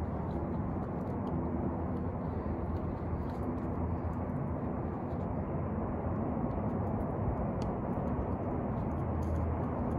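Steady outdoor background noise: an even low rumbling hiss with a faint hum, no distinct events.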